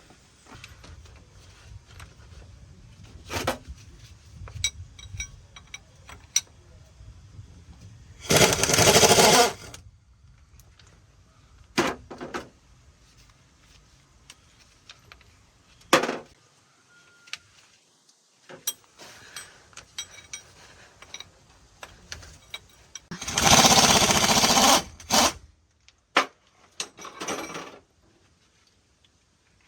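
Truck repair work: scattered sharp metal clanks and knocks, with two loud bursts of a power tool, one a third of the way in and a longer one about three-quarters through.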